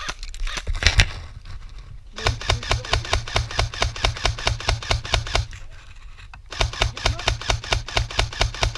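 Airsoft rifle firing on full auto: two long bursts of rapid, evenly spaced shots, each about three seconds long, the first starting about two seconds in and the second about six and a half seconds in, with a few single shots just before.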